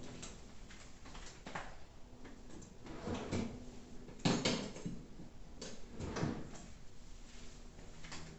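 Handling noises from unpacking a steam iron: a series of knocks, clatters and rustles, the loudest about four seconds in and another about six seconds in.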